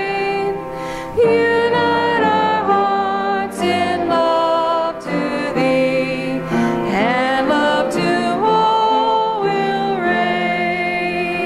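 Church choir and congregation singing a hymn in harmony, ending on a long held chord.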